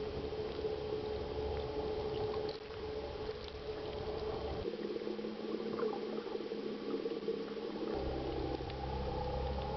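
Water rushing and bubbling around an underwater camera as it is towed, with a steady hum underneath. The low rumble drops out abruptly about halfway through and comes back near the end.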